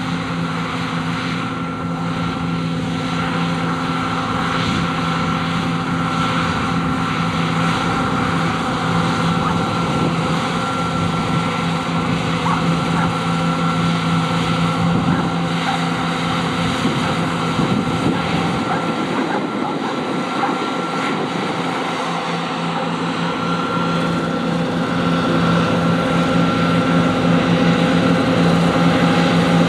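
John Deere T560 combine harvester running steadily while cutting oats: a constant engine drone with a high steady whine from the machinery, growing slightly louder near the end.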